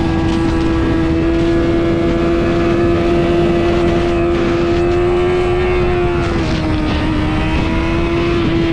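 Yamaha R6's 600 cc inline-four engine running at high, steady revs on track, its pitch dipping slightly about six and a half seconds in, under a constant rush of wind noise.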